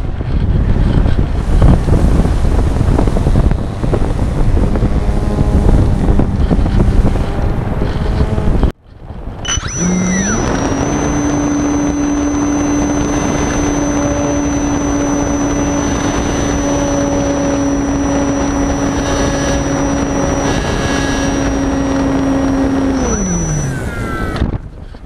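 Wind rushing over the onboard microphone of a model glider in flight. After a brief dropout about nine seconds in, the model's motor starts, rises to a steady hum with a high whine, and runs for about thirteen seconds before winding down near the end.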